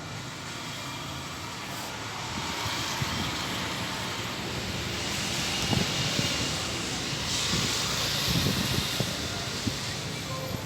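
Storm rain and wind rushing steadily, growing louder about five seconds in, with scattered low thumps.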